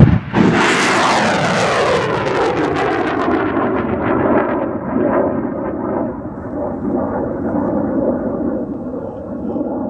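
Rocket launcher firing: a sudden loud blast, then the rocket's long rushing roar. Its pitch falls over the first few seconds and then holds steady.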